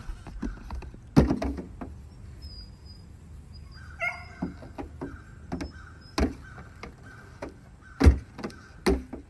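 A goat's hooves knocking and clattering on the metal hood of a BMW convertible: a series of sharp, irregular knocks, the loudest about a second in and again near eight seconds. A brief animal call sounds about four seconds in.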